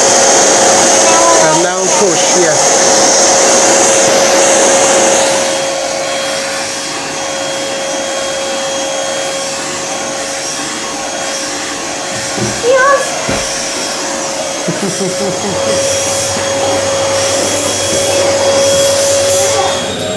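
Neabot P1 Pro pet-grooming vacuum running steadily, its motor giving a steady whine under a rush of suction through the hose and brush head. It is louder and hissier for the first five seconds or so, then settles lower.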